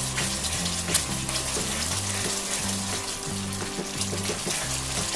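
Caramel sauce of sugar, butter and cream bubbling and sizzling in a pan as it is stirred, with a few sharp crackles. Background music with a stepping bass line plays throughout.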